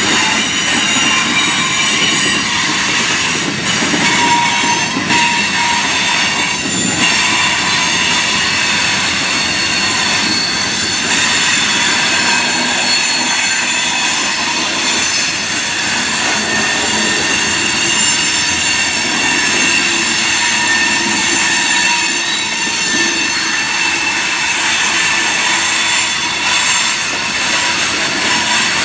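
Freight train cars, hooded steel-coil cars and then boxcars, rolling past at close range: a steady rumble of steel wheels on rail, with high-pitched wheel squeal held throughout and a few sharp clicks.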